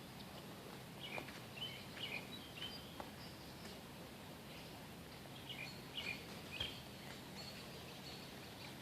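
Bird chirping in two short runs of quick high chirps a few seconds apart, over faint steady outdoor background noise with a few light clicks.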